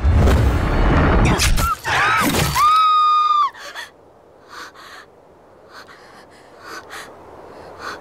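A loud noisy crash, then a woman's short cry about two seconds in, held for about a second. After it, quiet with a few faint short gasps.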